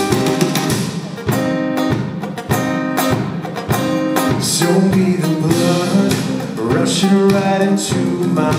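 Live music: a guitar picking notes, joined about halfway through by a man singing.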